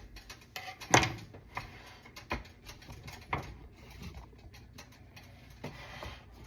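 A few sharp knocks and clicks, spaced irregularly; the loudest comes about a second in.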